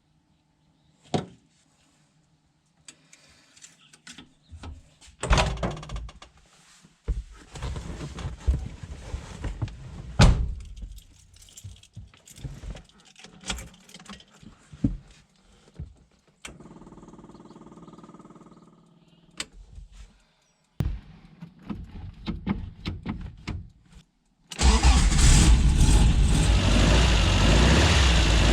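Clicks and knocks of handling, such as keys and a door, and a few seconds of a steady hum. Near the end, the 1965 Porsche 356C's air-cooled flat-four engine starts and keeps running loudly and steadily.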